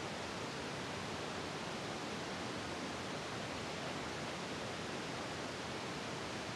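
Steady, even hiss of recording noise, with no other sound in it.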